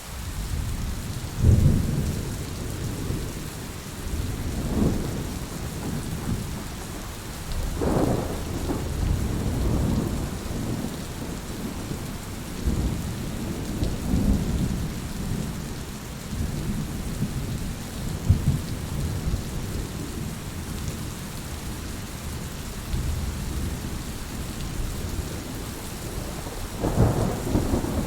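Heavy rain falling steadily, with thunder rumbling underneath, starting right at the beginning and swelling to its loudest peals about a second and a half in, around eight seconds, and near the end.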